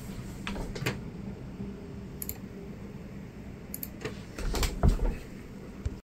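Quiet room tone with scattered small clicks and, about four and a half seconds in, a low thump and a few louder clicks as someone moves right up to the microphone. The sound cuts off abruptly just before the end.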